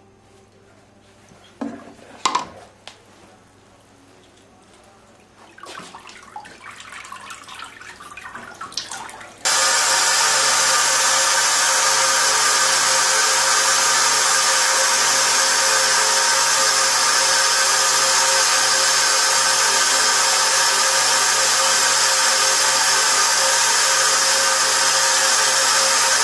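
Fluidised bed of coarse ceramic particles running: a loud, steady rush of air blowing up through the stucco, which starts abruptly about nine seconds in. Before it there are quieter handling sounds and a couple of sharp knocks as the pattern is worked in the ceramic slurry.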